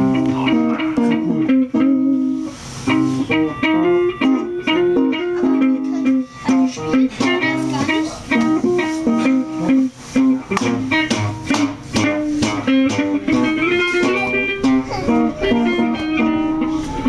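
Guitar improvisation: a quick, continuous run of short plucked notes over a recurring lower note.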